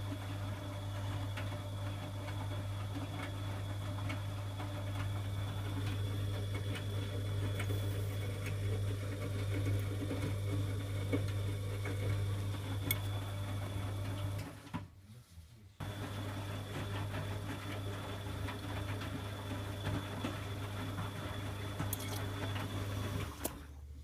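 Bosch WFG2020 front-loading washing machine's motor turning the drum on a Cotton 60 wash, a steady hum with a faint high whine and some sloshing of the wet laundry. It stops for about a second roughly fifteen seconds in, runs again, then stops shortly before the end.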